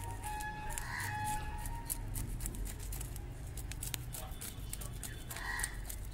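Quick scraping clicks of a knife scaling small bata fish, with a chicken clucking twice, about a second in and again near the end.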